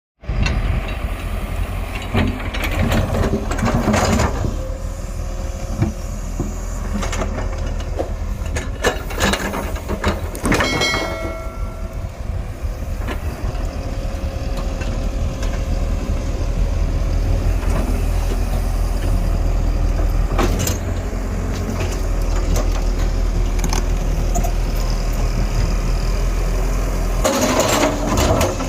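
Hydraulic excavator's diesel engine running steadily under working load, a deep rumble, with scattered knocks and scrapes from the bucket and machinery and a brief squeal about ten seconds in.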